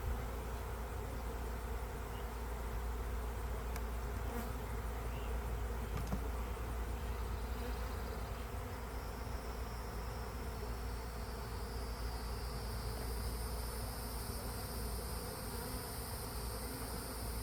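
Honeybees buzzing steadily around an open hive. A steady high-pitched whine joins about halfway through.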